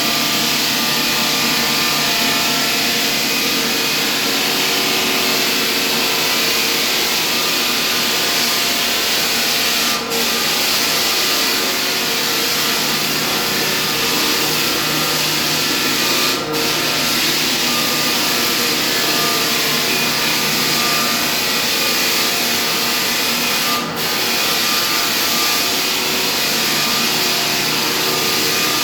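Floor sanding machine running steadily on a hardwood floor, a loud, even grinding with a motor hum, dipping for an instant three times.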